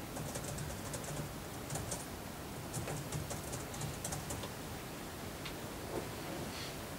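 Quick, light clicks and taps, dense for the first few seconds and then only now and then, over a steady low room hum.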